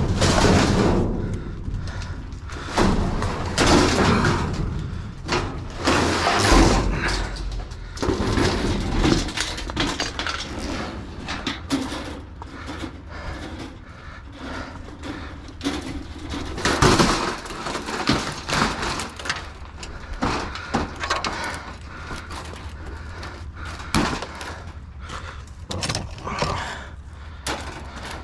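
Scrap being handled and loaded: irregular knocks, bangs and rattles of metal and junk, busiest at the start, with a few single heavy hits later on.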